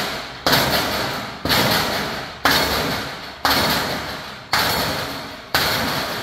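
Hammer blows on an aluminum gate hinge, six strikes about a second apart, each ringing off before the next. The hammering wraps the freshly welded aluminum strap around the hinge pipe while the metal is still hot.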